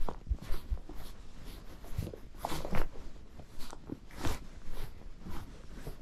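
A horse's hooves crunching through packed snow at a walk, irregular steps about two a second with low thuds under them.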